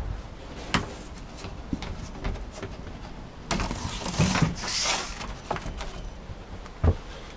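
Knocks and scraping as someone opens the door of a small wooden cabin and steps in, handling the boards: a few sharp knocks, a scraping rustle of over a second about halfway through, and a heavy thump near the end.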